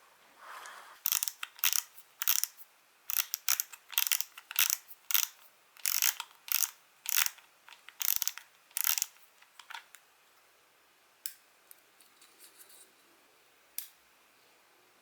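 Daiwa Regal fishing reel being cranked in short turns, giving a rough ratcheting, grinding rasp about twice a second, then a few single clicks near the end. This is the heavy, noisy running that dirt, dried grease and internal wear can cause.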